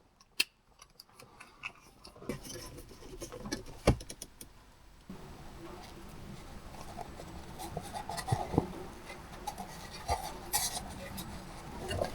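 Car interior trim and shifter parts being handled and fitted: scattered sharp plastic clicks and taps with light rattling, the sharpest clicks about half a second and four seconds in.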